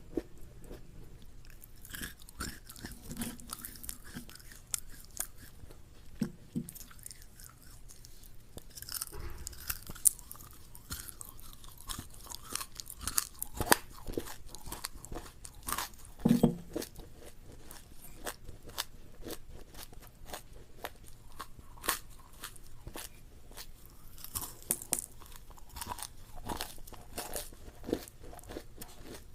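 Close-miked crunchy chewing and biting of food, a stream of irregular sharp crunches.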